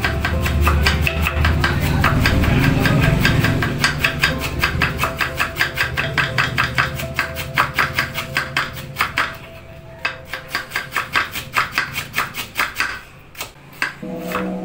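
Kitchen knife rapidly shredding cabbage on a wooden chopping board: quick, even cuts, several a second, with short pauses near the end. Background music plays under the cutting in the first part.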